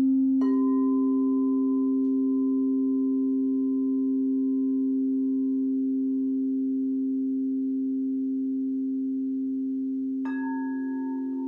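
Crystal singing bowls ringing with steady, overlapping pure tones that slowly fade. A bowl is struck with a mallet about half a second in, adding a higher tone, and another is struck near the end.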